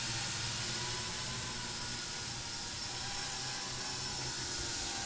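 7-inch quadcopter with 3D-printed eight-blade propeller hubs (32 folding blades) flying low: a steady whir of motors and many-bladed propellers with several held tones over a hiss. The drone is quiet for its size, a sign of the low thrust these hubs give.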